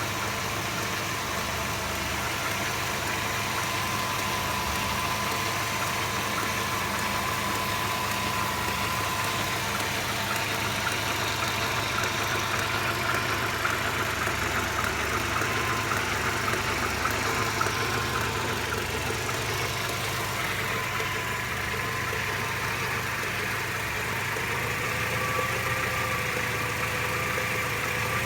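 Mercedes-Benz SLK 230's supercharged 2.3-litre four-cylinder engine idling steadily when hot, with a steady high whine running through it. This is the strange noise that appears only once the engine is hot, although fuel consumption, acceleration and smoke are all normal.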